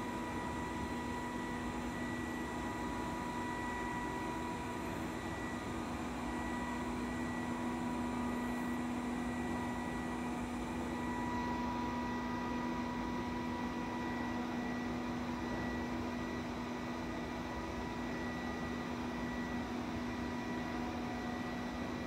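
Robot vacuum cleaner running as it moves across a tiled floor: a steady motor and fan hum with a faint higher whine over it.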